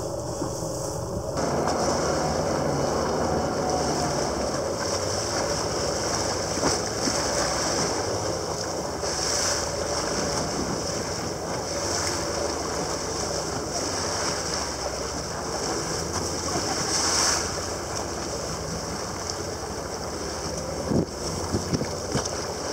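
Steady rush of wind and choppy sea water around a moving catamaran, with a faint steady hum underneath. Louder gusts come twice, and there is a short knock near the end.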